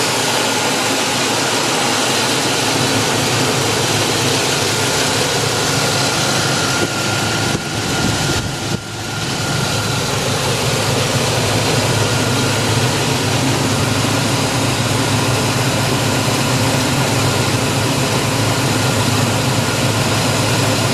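Newly rebuilt engine of a 1999 Chevrolet Silverado 1500 idling steadily, with a thin steady whine above it. The sound is heard from over the open engine bay.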